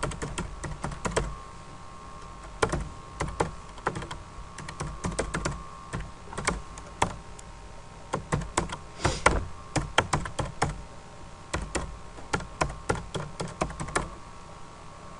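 Typing on a computer keyboard: quick runs of keystrokes with short pauses between them, stopping near the end, over a faint steady hum.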